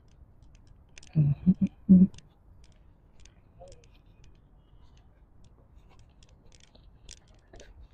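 A brief burst of a person's voice about a second in, then faint, irregular clicks of footsteps on a brick-paved path.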